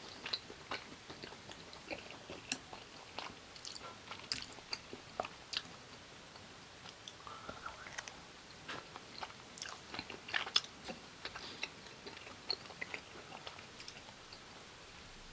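Close-miked chewing and biting of fried gimmari and tteokbokki in spicy sauce: an irregular stream of wet mouth clicks and small crunches, loudest about ten and a half seconds in.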